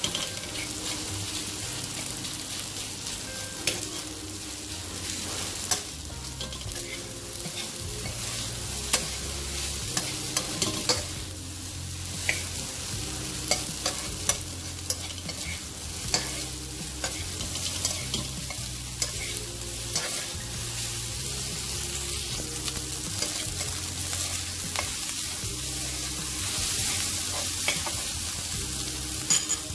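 Fried rice sizzling in a wok while a metal spatula stirs and scrapes it, with frequent sharp clicks of the spatula against the pan.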